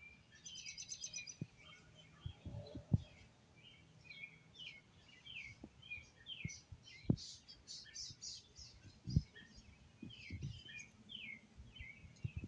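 Birds chirping over and over in short, quick notes, with a fast high trill about a second in. A few dull knocks stand out now and then, the loudest near the three, seven and nine second marks.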